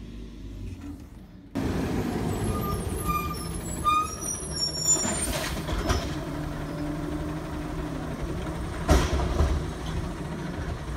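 Automated side-loader garbage truck with its engine running, louder from about a second and a half in. High squeals come about three to five seconds in, a hiss about five seconds in, and a loud thump near nine seconds in.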